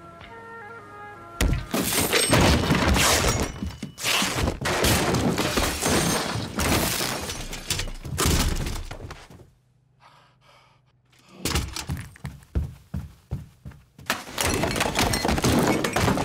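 Soft held music notes, then a long run of loud crashing, thudding and breaking, as of objects being knocked over and smashed in a small room. After a brief hush, scattered knocks return and build into more crashing.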